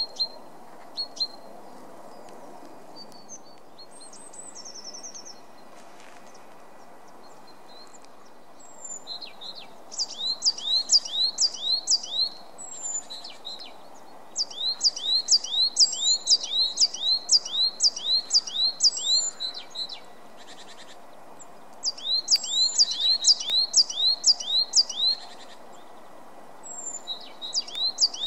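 Coal tit singing: bouts of fast, high two-note phrases repeated several times a second, with short pauses between bouts, beginning about a third of the way in. Before that, a few scattered short high bird calls.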